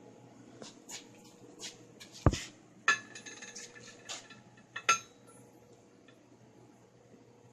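Small handmade brass spinning top clinking on a hard surface as it is spun: a run of light clicks, a hard knock a little over two seconds in, then bright metallic ringing clinks about three and five seconds in.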